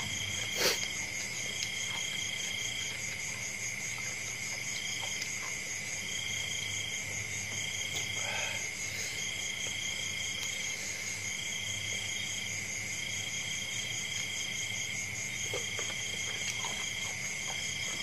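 Night chorus of insects and frogs: a steady high-pitched trill, with a second, higher trill switching on and off every second or so. A single sharp click comes about a second in.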